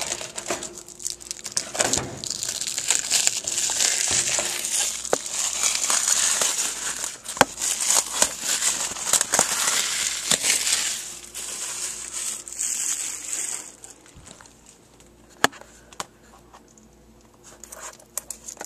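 Plastic shrink-wrap being peeled and crumpled off a DVD box set: dense crinkling with sharp crackles for about twelve seconds, then it stops, leaving a few light clicks of handling.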